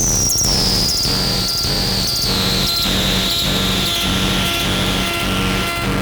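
Electronic synthesizer music: a high, thin whistling tone glides slowly downward and fades out near the end, over a steady pulse of about one and a half beats a second and repeated low held notes.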